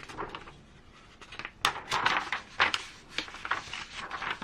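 Small hobby parts being handled on a workbench: irregular clicks, taps and rustles, loudest in a cluster around two seconds in.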